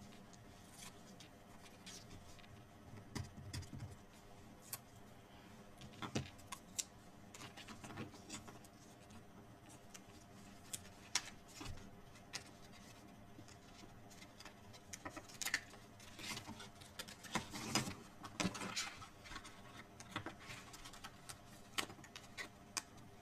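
Cardstock and paper being handled on a work table: scattered soft crinkles, rustles and light taps, busiest a little past the middle.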